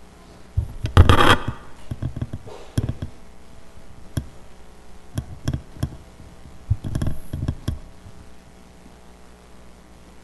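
Scattered knocks, taps and rustling from people moving about: a loud short rustle and bump about a second in, sharp clicks through the middle, and another cluster of bumps around seven seconds.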